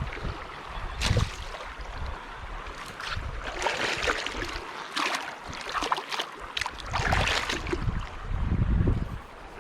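River water splashing and swishing irregularly, with gusts of wind rumbling on the microphone.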